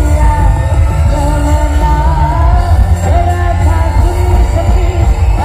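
Loud music with a heavy, dense bass played through a 'sound horeg' street sound system, a tall stack of loudspeakers, with a wavering sung melody on top.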